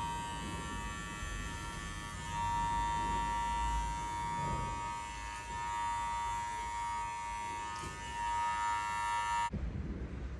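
Cordless hair clipper buzzing steadily as it cuts hair over a comb, the pitch holding even and the buzz swelling slightly as the blade meets the hair. It cuts off suddenly near the end.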